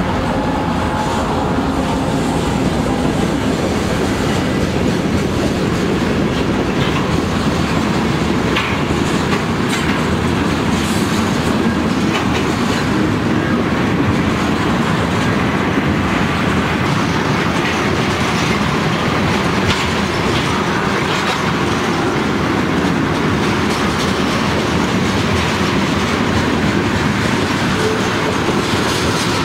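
Long train of loaded ethanol tank cars rolling past: a steady rumble of steel wheels on rail, with clickety-clack over the rail joints.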